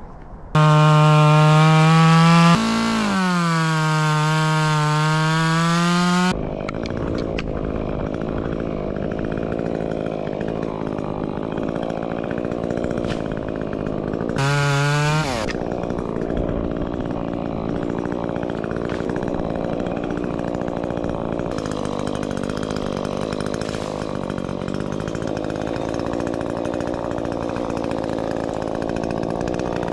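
Chainsaw run at full speed through a cut for about six seconds, its pitch dipping briefly as it bites into the wood, then dropping back to a lower, rougher running speed. It is revved hard once more, briefly, about halfway through.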